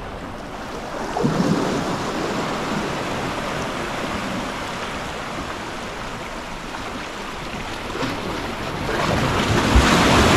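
Sea surf washing in steadily, with wind on the microphone; the surf grows louder about nine seconds in.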